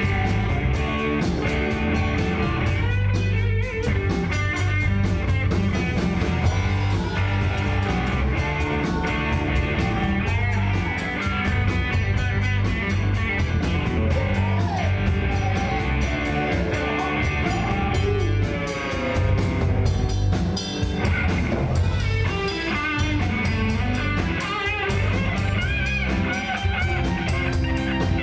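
Live rock band playing: electric guitars, bass and drum kit, with a male singer at the microphone. Loud and continuous, with a steady beat.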